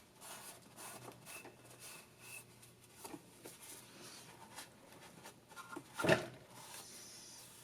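Faint rubbing and scattered light clicks of oil being wiped off the engine, with one louder knock about six seconds in.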